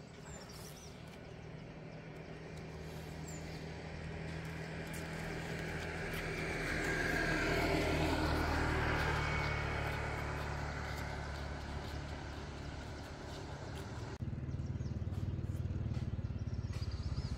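A motor vehicle driving past on the road, its engine and tyres growing louder to a peak about halfway through, then fading away. Near the end the sound changes abruptly to a rapid fluttering.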